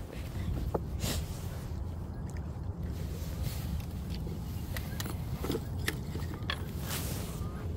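Footsteps on loose riverbank rocks, with scattered clicks of stones knocking underfoot, over a steady low rumble.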